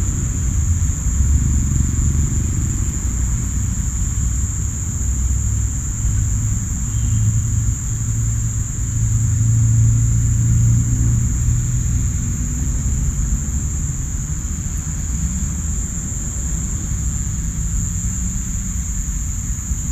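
Steady, unbroken high-pitched chorus of crickets and cicadas, loud, over a low rumble that swells and fades about halfway through.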